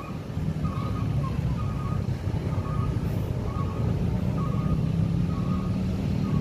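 Dense motorcycle and car traffic crossing the tracks, engines running in a steady low rumble. Over it a short electronic beep repeats about once a second.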